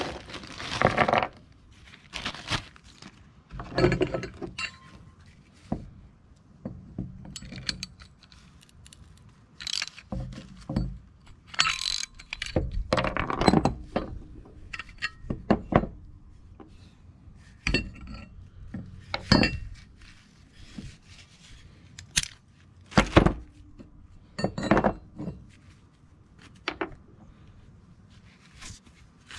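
Small metal bolts and nuts clinking and hand tools being picked up and set down on a plastic workbench: a string of separate, irregular clinks and knocks.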